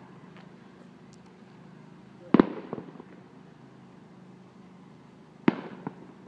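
Aerial firework shells bursting: two loud bangs, about two and a half seconds in and again near the end, each followed by a few smaller pops and a fading tail.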